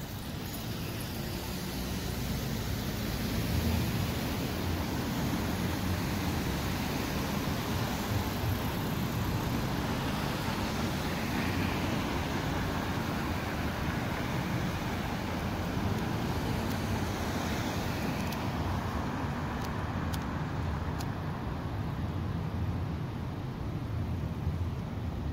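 City street traffic: cars passing steadily, a continuous rumble of engines and tyres.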